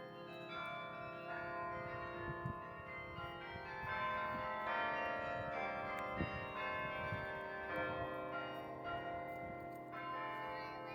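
Carillon of bronze tower bells playing a tune, new notes struck about every second and each ringing on and overlapping the others.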